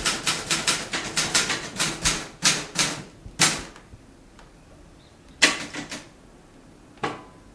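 Typewriter being typed on: a quick run of key strikes, about five a second, for some three and a half seconds, then a pause and two single, louder strikes.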